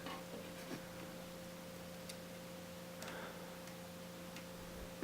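Faint, scattered small clicks and taps of a cable connector and plastic parts being handled and fitted inside an opened iMac, over a steady low electrical hum.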